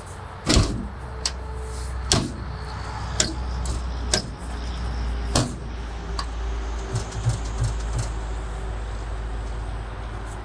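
Metal clanks and knocks from an engine hoist, its chain and a truck differential hanging from it, as the differential is worked into a pickup bed. The loudest clank comes about half a second in, with several more at irregular intervals over a steady low rumble.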